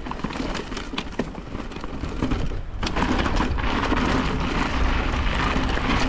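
Mountain bike rolling over loose, rocky ground: tyre crunch with a few sharp clicks and rattles, and wind rumbling on the microphone. It gets louder about three seconds in.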